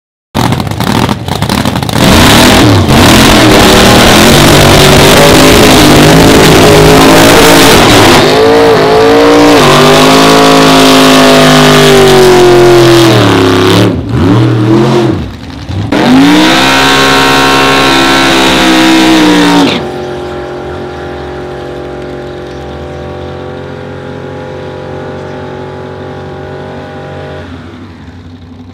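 Drag racing car doing a burnout: the engine is held at high revs while the tyres spin, falls away briefly about halfway and revs up again. Then the sound cuts abruptly to a quieter, steady engine running at lower revs.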